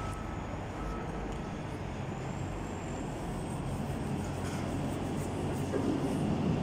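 Aeroexpress ESh1 (Stadler KISS double-deck) electric train approaching along the platform. Its rumble grows louder over the last couple of seconds.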